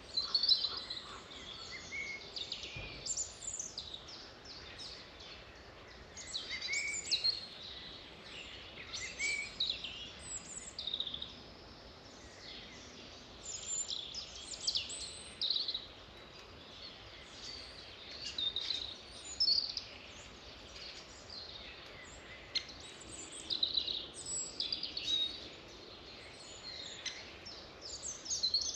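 Wild birds singing: short chirping and trilling phrases come every second or two over a steady background hiss.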